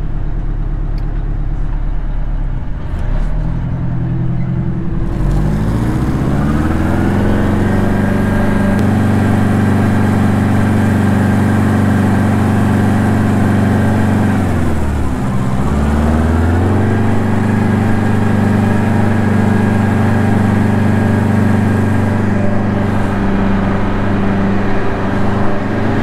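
Two-stroke Detroit diesel engine of a water truck pulling away, its revs climbing for a few seconds and then running steady at speed. About halfway through the revs drop and climb again as it shifts gear.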